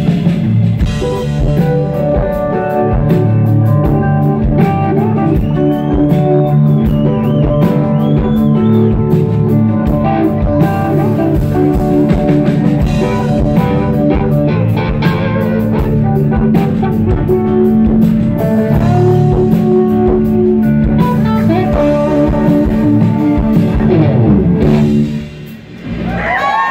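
Live rock band playing loud: electric guitars over drums and keyboards. The music drops out briefly about 25 seconds in, and crowd cheering rises right at the end.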